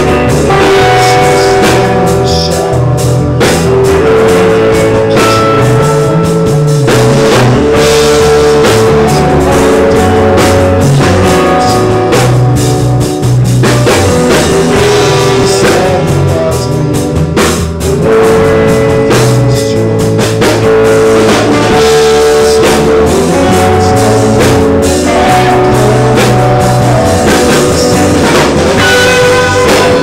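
Rock band playing loudly: electric guitar over bass and drum kit, one continuous song.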